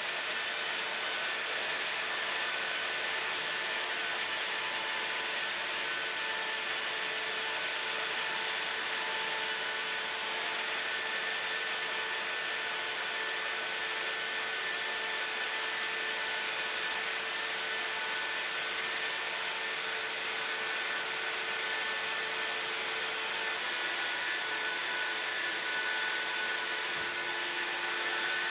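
Handheld plastic extrusion welder running steadily while it lays a weld bead along a double-V butt joint: a continuous whirring hiss of its hot-air blower with faint steady tones from its motor, shifting slightly near the end.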